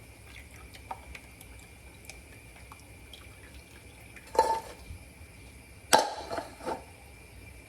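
Kitchen cookware being handled: small clinks and drips, then two louder metallic clanks with a short ring, about four and six seconds in, followed by a couple of lighter knocks.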